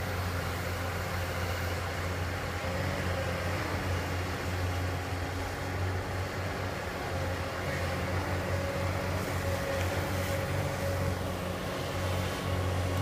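Komatsu PC240LC-10 long-reach excavator's diesel engine running steadily at working speed with a low, even hum while the arm digs in the water.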